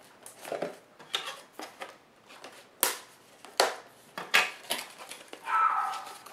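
Cardboard and plastic packaging being opened and handled: soft rustling broken by a series of sharp clicks and knocks, then a louder squeaky scrape near the end.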